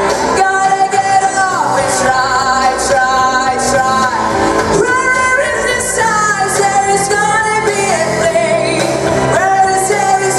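A girl singing a pop song into a handheld microphone over an instrumental accompaniment with drums. She holds long notes that slide between pitches.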